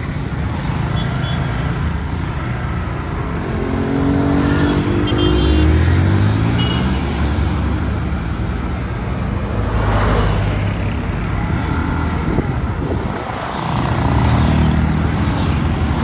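A road vehicle's engine running and accelerating, its pitch rising about three seconds in and again near the end, over steady road rumble.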